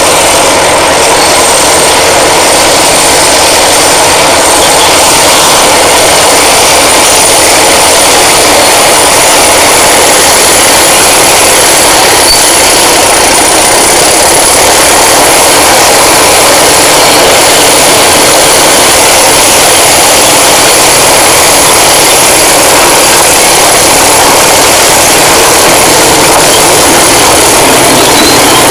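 Caterpillar D7 bulldozer's diesel engine running steadily, with a high turbocharger whistle that wavers slightly in pitch.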